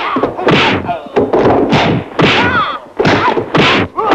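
Martial arts film fight sound effects: a rapid series of dubbed punch and kick impacts, heavy thuds about every third of a second, mixed with short shouts and grunts from the fighters.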